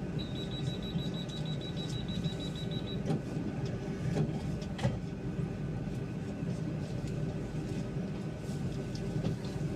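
Inside a city bus: steady engine and running rumble, with a rapid high-pitched beeping for about the first three seconds.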